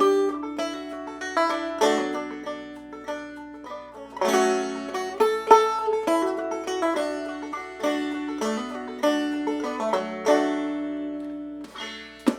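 Clawhammer banjo played slowly, capoed at the second fret in the C position: single plucked melody notes and brushed chords, each ringing and fading. The playing stops near the end.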